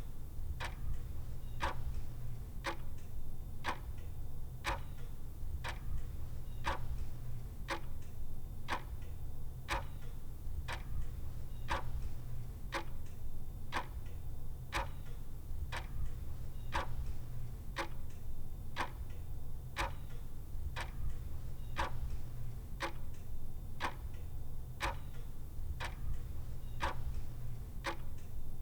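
Clock ticking steadily in an even rhythm, a little faster than one tick a second, over a low steady hum.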